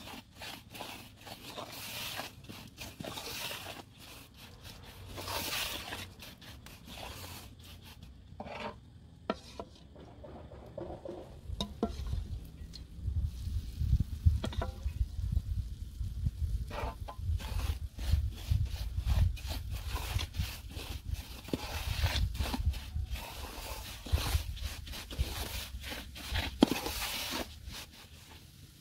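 Wooden spoon stirring and scraping crumbly flour mixed with melted butter in a large metal pan: a run of dry scraping strokes against the pan, sparse at first and busier and heavier from about halfway.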